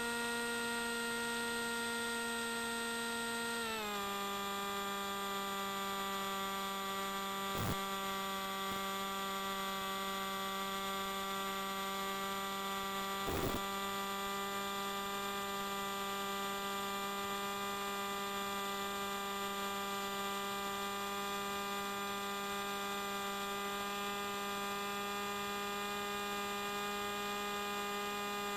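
Steady hum of a small fixed-wing plane's brushless electric motor and propeller, dropping a little in pitch about four seconds in as the throttle is eased back, then holding steady. Two brief clicks come about a third and about halfway through.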